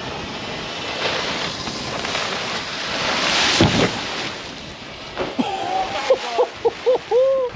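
Steady wind-and-water noise that swells briefly about three and a half seconds in. From about five seconds, a series of short pitched sounds rises and falls in quick succession over it.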